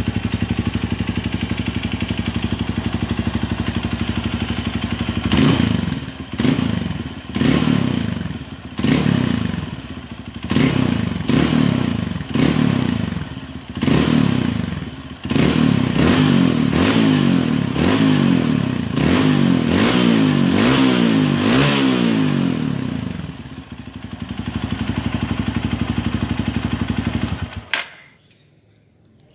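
Honda CRF150L's single-cylinder four-stroke engine running through its stock muffler with the insides hollowed out, giving a mellow exhaust note. It idles, is blipped about ten times in quick rev-and-drop succession, is held at higher revs with a wavering throttle, settles back to idle, and is switched off near the end.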